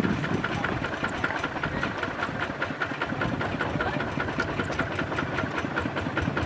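Kubota RT155 walking tractor's single-cylinder diesel engine idling steadily, with a rapid, even chugging beat.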